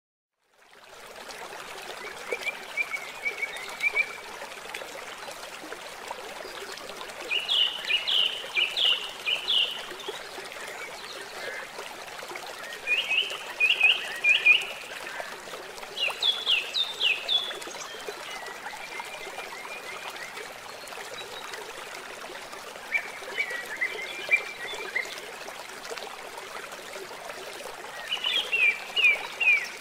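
Steady running water with a songbird singing short phrases of quick descending notes every few seconds. The sound fades in during the first second.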